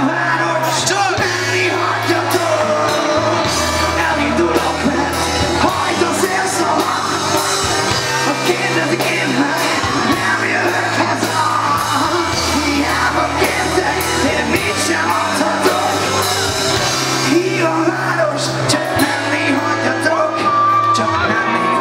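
Live rock band playing through a PA: electric guitars, bass and drums with a vocalist singing, the bass holding long notes that change every few seconds.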